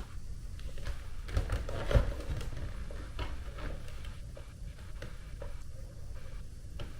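Scattered knocks and light taps from handling a plastic airflow meter at a supply register, over a steady low rumble, with one sharper knock about two seconds in.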